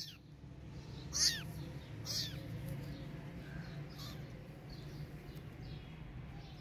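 Kitten meowing: a loud, high-pitched meow right at the start, two more about one and two seconds in, then fainter meows spaced through the rest.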